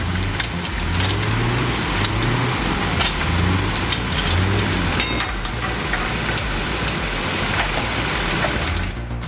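A heavy truck engine running steadily, its low drone rising and falling a little in pitch, with a few sharp knocks and rattles in the middle. Music comes in right at the end.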